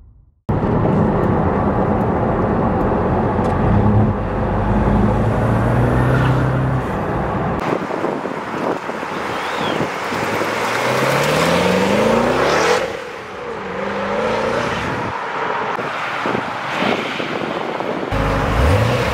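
Twin-turbo 427 V8 of a Lingenfelter C6 Corvette, driving and accelerating past, its engine note rising in pitch as it revs. It is heard in several short clips that change abruptly.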